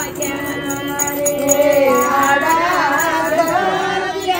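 Devotional singing of a bhajan, the voices' pitch wavering and gliding over a steady held note, with a quick, even jingling beat from hand percussion.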